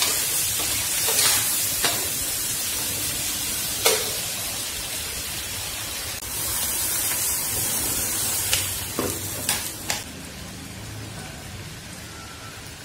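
Food sizzling in hot oil in a pan, with several sharp clicks and knocks of a utensil, four of them close together about nine seconds in; the sizzle drops off near the end.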